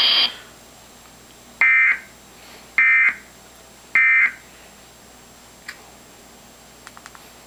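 Emergency Alert System end-of-message signal: three short buzzing digital data bursts, about a second apart, closing the broadcast alert.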